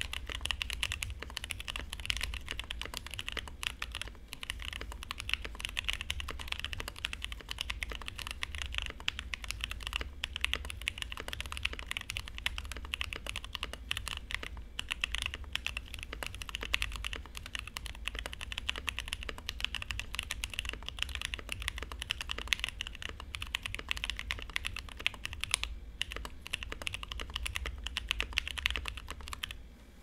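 Fast, continuous typing on a TKC Portico mechanical keyboard with lubed and filmed TKC Kiwi tactile switches, Kinetic Labs BOW keycaps and its plate foam removed: a dense stream of key clacks with a few brief pauses.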